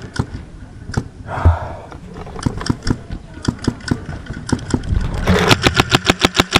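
Paintball markers firing: scattered sharp pops, then about five seconds in a rapid string of shots at about ten a second from a marker close by.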